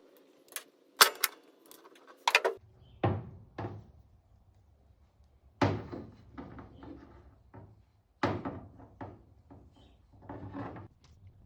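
A series of irregular knocks and clunks, about a dozen over the stretch, from hard objects being handled and set down.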